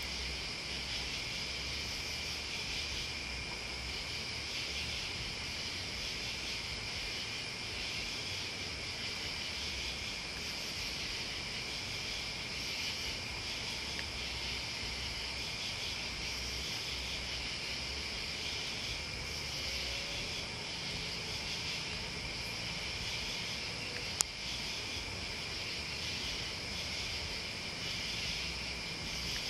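Night chorus of crickets and other insects: a steady, high chirring with a low rumble coming and going underneath. A single sharp click cuts through once, late on.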